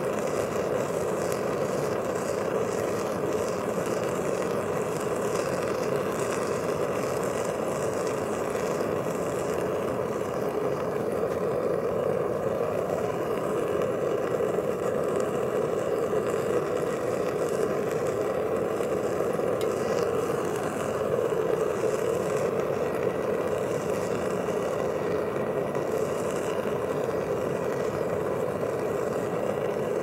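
Vevor smelting furnace's burner running steadily, a constant rushing noise, as it heats aluminum scrap in the crucible.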